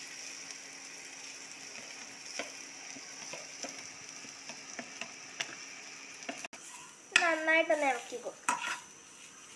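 Grated coconut with shallots, garlic and curry leaves frying in oil in a pan: a steady sizzle with light scrapes of a spatula stirring. About seven seconds in, a louder, wavering pitched sound breaks in for about a second.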